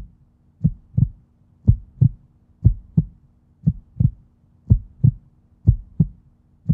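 Heartbeat sound effect: pairs of low thumps, about one pair a second, in a slow, even rhythm over a faint steady hum.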